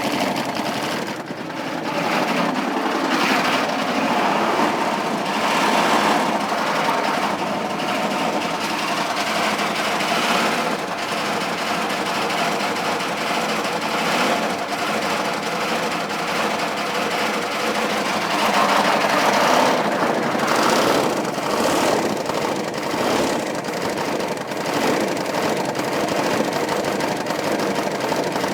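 GM K3500's 6.5-litre V8 diesel running with a rapid knock and rattle, its speed swelling and falling back on its own a few times with no throttle input. The owner suspects a broken or cracked piston, a spun bearing or a head gasket.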